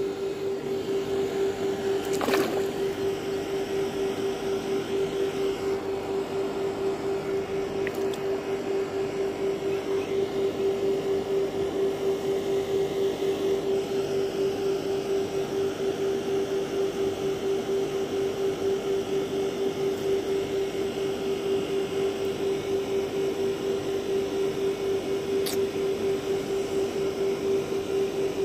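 A small engine running steadily, a constant pulsing hum that holds one pitch throughout, with a sharp click about two seconds in.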